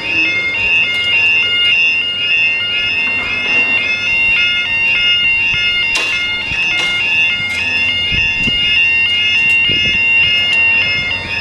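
Level crossing warning alarm sounding very loud: a rapid, repeating two-tone warble that runs on without a break while the barriers come down. A few sharp knocks sound about six to seven seconds in.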